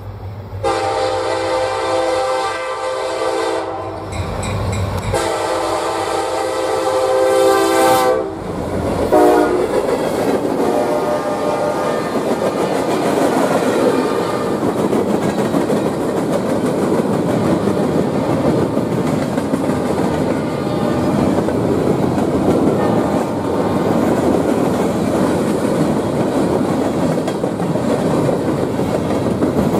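A Wheeling & Lake Erie diesel freight locomotive sounds its multi-note air horn in two long blasts and then a short one. Its train of hoppers and gondolas follows, rolling past with a steady rumble and the wheels clacking over the rail joints.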